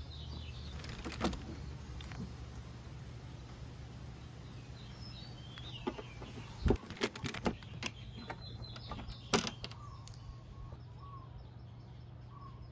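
Screws being backed out of a scooter's plastic side panel with a hand Phillips screwdriver: a few sharp clicks and taps, a cluster about seven seconds in and another near nine seconds. Birds chirp in the background over a steady low hum.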